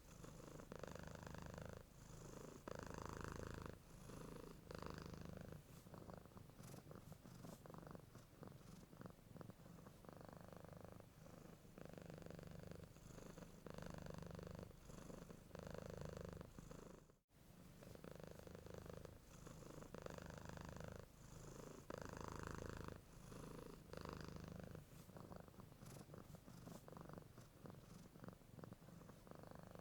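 Domestic cat purring steadily, its quiet rumble swelling and easing about once a second with each breath. There is a brief break in the sound a little past halfway.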